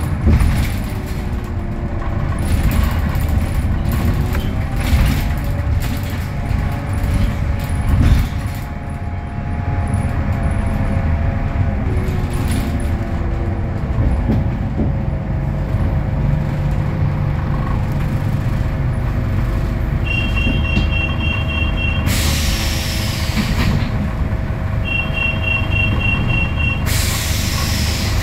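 On board a Scania K320UA articulated bus: its DC09 five-cylinder diesel and ZF Ecolife automatic gearbox running, the engine note rising and falling as it pulls away and shifts. Twice near the end, rapid high beeping for about two seconds is followed by a loud hiss of released air.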